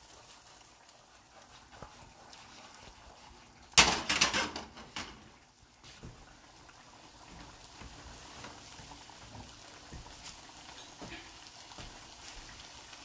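Gnocchi and green peas pan-frying in a nonstick skillet with a faint, steady sizzle. About four seconds in there is a loud burst of sizzling and rattling for about a second as the pan is moved and set back on the burner.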